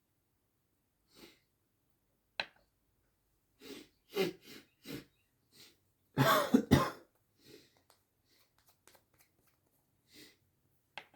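A person sneezing wetly: a few short catching breaths build up, then one loud sneeze about six seconds in, followed by softer breaths.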